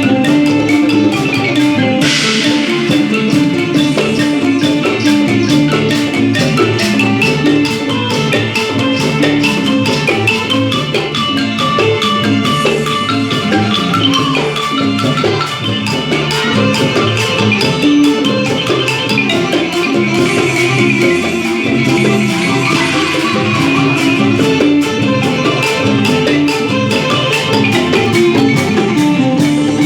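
Isan folk dance music led by a ponglang wooden log xylophone playing quick repeated notes over a drum beat.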